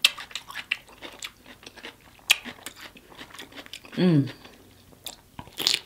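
Close-miked eating: wet mouth clicks and chewing, a short falling "mm" hum about four seconds in, and a loud crunching bite into a sauce-coated cucumber spear near the end.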